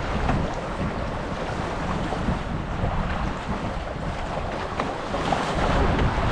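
Wind blowing over the microphone, with water rushing and splashing past the hulls of a Hobie 16 catamaran under sail: a steady, rough noise.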